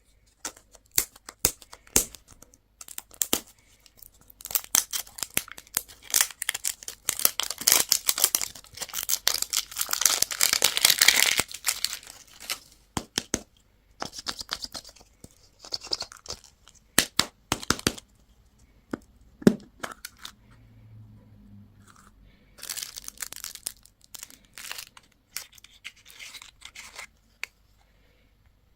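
Candy and toy packaging being crinkled and torn open by hand: rustling, tearing wrappers and sharp clicks, busiest and loudest in the first half, then in scattered bursts.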